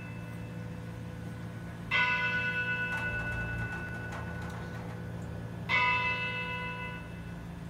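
A bell struck twice, about four seconds apart, each stroke ringing clear and fading slowly.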